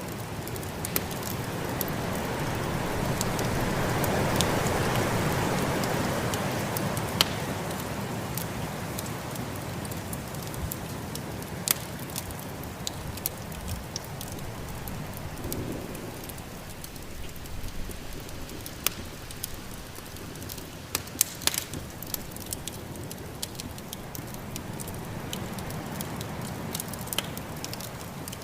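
Wood fire crackling in a fireplace, with sharp pops scattered throughout and a quick cluster of them about three quarters of the way in, over the steady rush of snowstorm wind that swells for a few seconds near the start.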